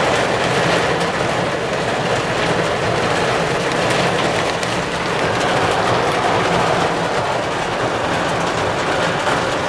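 Heavy rain pouring down in a thunderstorm: a loud, steady rush of rain.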